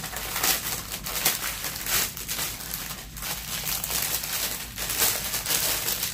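Clear cellophane wrapper crinkling as it is unwrapped and pulled off a bundle of small plastic bags of diamond-painting drills: an irregular, crackly rustle.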